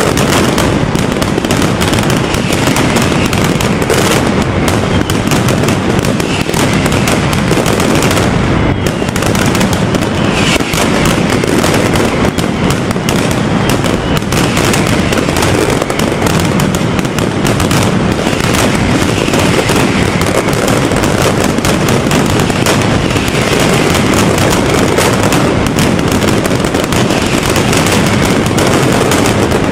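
Mascletà: a dense, unbroken barrage of firecrackers going off in rapid succession, loud throughout.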